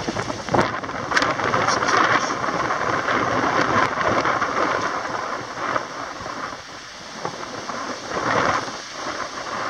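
Strong wind buffeting the microphone of a camera carried on a moving bicycle: a rushing, rumbling noise that swells and eases in gusts.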